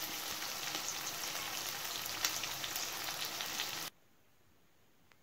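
Boiled chicken pieces frying in hot oil in a nonstick pan: a steady sizzle with scattered crackles and pops. It cuts off suddenly about four seconds in.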